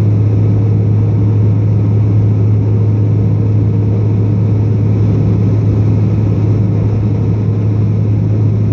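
Cabin noise of a British Aerospace Jetstream 32 climbing after takeoff: its twin Garrett TPE331 turboprops and propellers give a strong, steady low hum under a loud, even rush.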